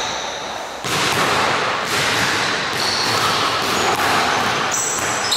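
Basketball dribbled on a hardwood gym floor during one-on-one play, with sneaker squeaks, in a reverberant hall.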